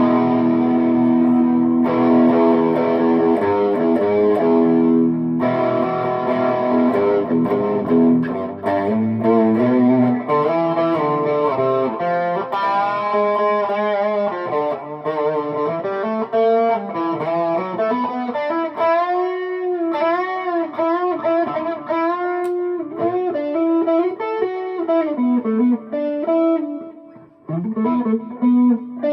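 Harley Benton SC-Deluxe electric guitar played through the Tone City King of Blues dual overdrive pedal on Engine A with its gain at maximum: distorted held chords for the first few seconds, then a single-note lead line with string bends, briefly dropping away near the end.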